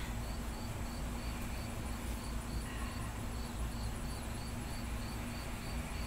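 Insects chirping in a steady, even rhythm of about three chirps a second, over a low steady rumble.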